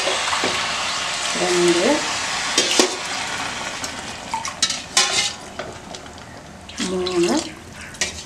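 Water poured from a steel pot into a hot pressure cooker of fried spiced rice, hissing and sizzling as it hits the hot mixture; the hiss fades after about three seconds. Several clinks of steel vessels and a couple of short squeaks come through it.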